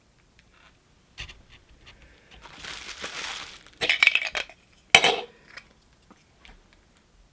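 Funko Soda packaging being handled: plastic crinkling for about a second, then a quick series of sharp clinks and rattles, and one louder knock about five seconds in, like the metal can being set down.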